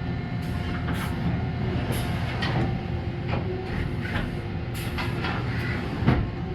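Mazak Integrex i-150 multi-axis CNC lathe running: a steady machine hum with a series of sharp mechanical clicks and clunks, the loudest a little before the end.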